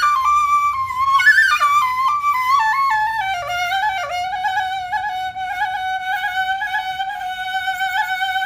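Background music: a solo flute melody that steps down in pitch over the first few seconds, then holds a long, lightly ornamented low note.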